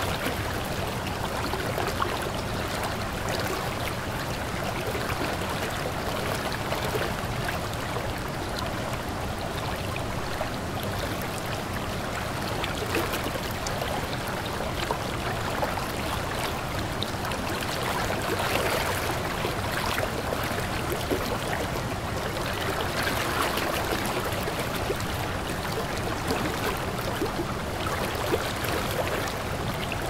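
Waterfall: water falling and splashing steadily, a continuous rushing with no breaks.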